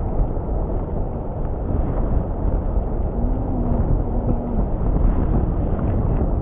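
Strong wind buffeting the microphone: a steady, heavy low rumble with no clear breaks.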